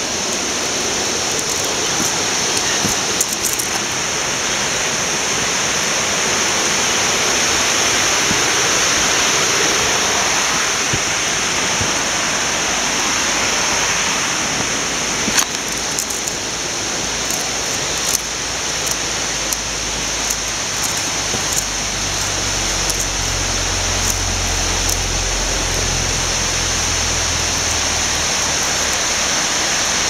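Steady rushing water of a waterfall and creek, with a few light knocks scattered through. A low rumble joins in after about twenty seconds.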